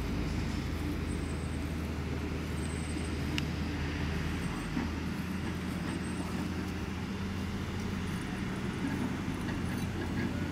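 Steady low outdoor rumble with a faint hum, with one faint click about three and a half seconds in.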